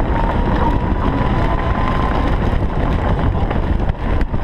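Golf cart driving along: a steady rumble of the cart and its tyres with wind buffeting the microphone, and a thin high whine held at one pitch, briefly dipping twice near the end.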